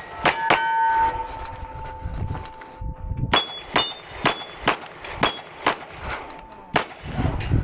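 SIG Sauer P320 pistol fired in quick strings at steel targets, each hit ringing the plate. Two shots come near the start, with the plate ringing on for a couple of seconds, then a fast run of about eight shots roughly half a second apart.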